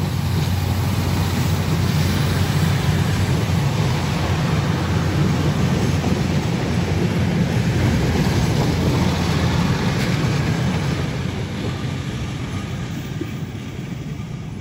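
Kereta Rel Klinik (rail clinic train) passing close by: steady running noise of wheels on rail, strongest in the low rumble, fading over the last few seconds as the train moves away.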